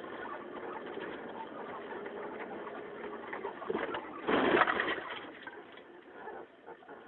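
Car engine running as the car drives forward, then a loud crash about four seconds in, lasting about a second, as it rams into a thicket of brambles and sheet metal; the sound dies away afterwards.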